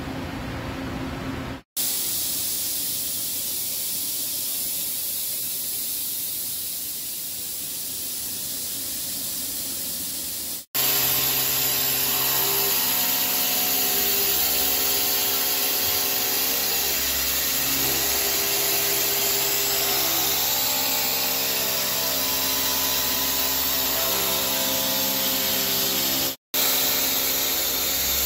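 CNC milling machine cutting a split gear's tooth profile with an end mill: a steady hiss that a little past a third of the way in gains several steady tones from the spindle and the cut, with two brief dropouts.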